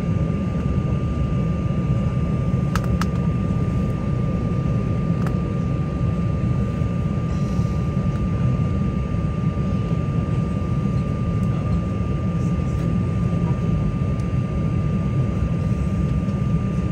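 Embraer 190's GE CF34 jet engines heard from inside the passenger cabin on the ground, a steady low rumble with a thin steady whine above it. A couple of faint clicks come about three seconds in.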